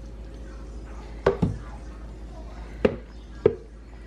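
Four sharp knocks at uneven intervals: the blender jar tapping against the rim of the slow cooker's crock as thick puréed potato and coconut milk is emptied into it.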